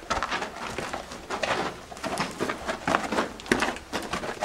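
Footsteps and shuffling of several people walking over a rough, gritty floor, with a few short pitched sounds in between.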